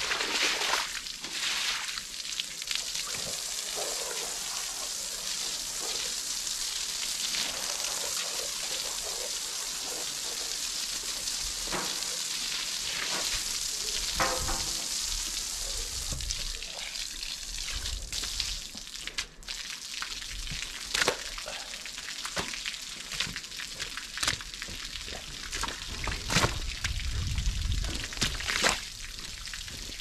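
An old blanket being hand-washed: a steady rush of water with wet splashing and rubbing. Sharper splashes and knocks come in the last third.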